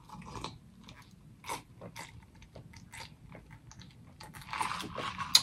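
Close-miked mouth sounds of eating and drinking: scattered wet clicks and smacks, then a denser run of sipping and swallowing from a cup near the end, ending in a sharp click.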